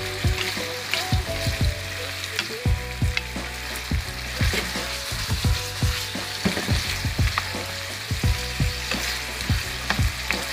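A stir-fry of pork and vegetables sizzling in a frying pan as a wooden spatula stirs it, with a steady hiss and frequent short knocks and scrapes of the spatula against the pan.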